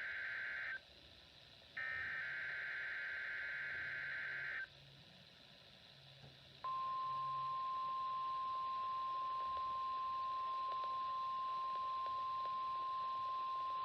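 NOAA Weather Radio weekly test sounding from a weather radio's speaker. The warbling SAME digital header tones end about a second in, then a final burst of about three seconds plays, and after a two-second pause the steady 1050 Hz warning alarm tone starts and holds. This is the alarm tone that would normally be followed by a watch or warning.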